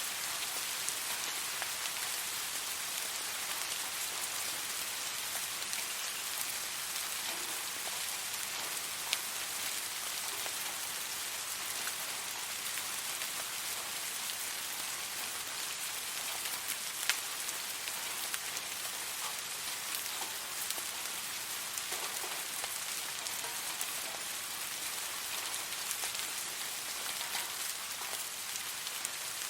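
Steady rain falling on a surface: an even hiss with scattered individual drops ticking sharply.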